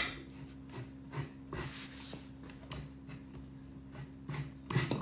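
Metal demount bar of a manual tire changer scraping and knocking against the rim and the ATV tire's rubber bead as it is worked around to pry the bead off. A sharp metal click comes at the start and a cluster of clanks near the end.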